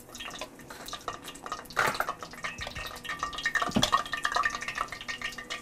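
Hot frying oil crackling in a cast iron skillet around a test piece of cornmeal-breaded okra, with two knocks from a mixing bowl being handled, about two and four seconds in.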